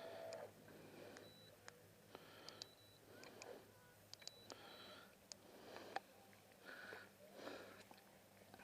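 Near silence with faint scattered clicks and a few short high beeps.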